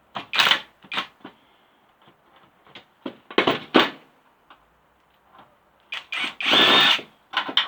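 Cordless brushless impact driver run in several short bursts, driving out screws from a consumer unit's brass terminals; the longest burst, about a second near the end, carries a high whine. Small clicks and knocks of metal parts come between the bursts.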